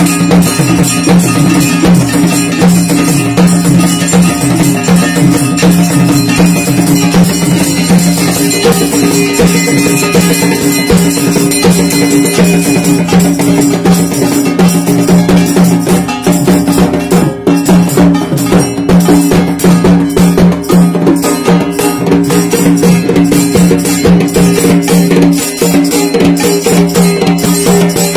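Puja percussion: a dhol drum and rapidly, continuously struck metal cymbals or bells. Two steady low tones are held underneath.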